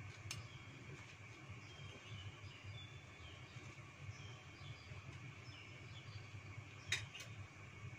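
Faint steady low rumble of a gas burner under a lidded pot of boiling water, with small birds chirping in the background and a sharp click about seven seconds in.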